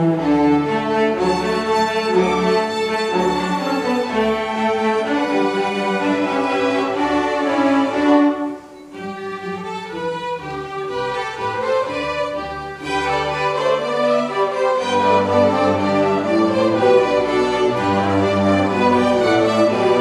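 A string orchestra of violins, cellos and double basses playing bowed, sustained music. A little before halfway it drops to a softer, thinner passage, then swells back to full volume with the low strings strong.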